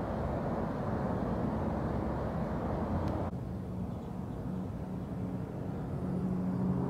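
Outdoor background rumble of vehicles, steady and low. About three seconds in the sound changes abruptly to a duller rumble, with a low hum in the second half.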